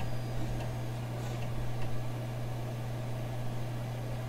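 Commodore PC 10-II running with a steady low hum, with a few faint ticks from its disk drives while the installer reads files off the floppy and writes them to the hard disk.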